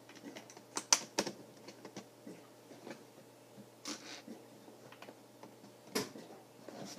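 Small plastic Lego pieces clicking and rattling against each other and the tabletop as they are picked through and pressed together, in irregular sharp clicks, the loudest about a second in.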